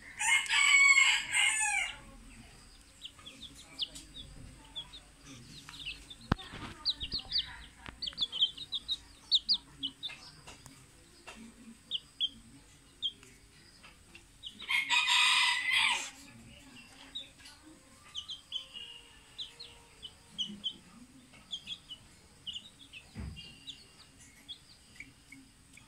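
A rooster crows twice, the first crow right at the start and the second about fifteen seconds in, each lasting under two seconds. Between the crows come many short, high chirps.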